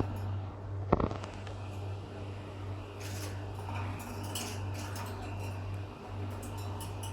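Caged lovebirds making scattered short clicks and faint chirps over a steady low hum, with one sharp knock about a second in.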